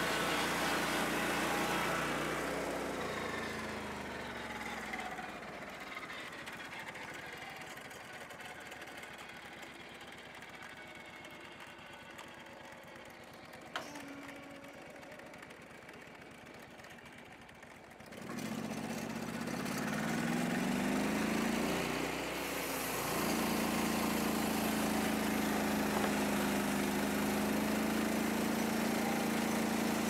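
Lucas swing-blade sawmill's engine drops from full speed to a low idle a couple of seconds in and idles quietly. About 18 seconds in it revs back up, rising in pitch, and from about 23 seconds runs steady at full speed as the blade cuts through a Douglas fir log.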